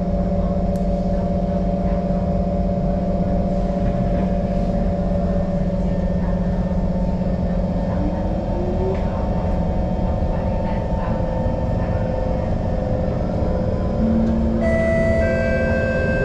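Singapore MRT train running on an elevated track, heard from inside the carriage: a steady electric motor hum and whine over wheel and rail rumble. About two seconds before the end the hum steps up in pitch and a set of higher whining tones comes in.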